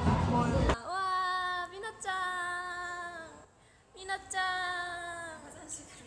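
A woman's voice singing three long held notes, each sliding slowly down in pitch, with short breaks between them. The first fraction of a second is loud voices from the end of the previous clip.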